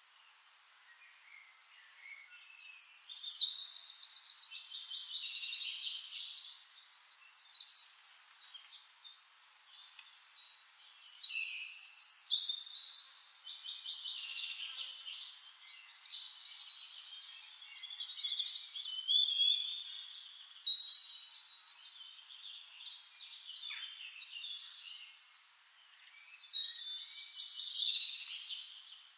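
Songbird song: phrases of a few seconds made of fast, high trills and quick notes, recurring with short pauses between them.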